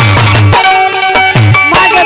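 Instrumental passage of a Bundeli folk bhajan: a sustained melody over a repeating low drum beat, the drum pausing for about a second midway.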